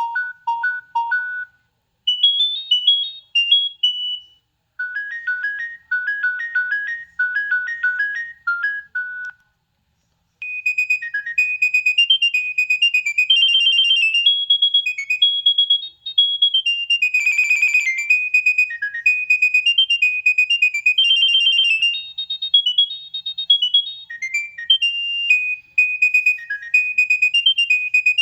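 Nokia 6610 mobile phone playing its preloaded ringtones: several short, high-pitched electronic melodies separated by brief pauses, then a longer, faster tune from about ten seconds in.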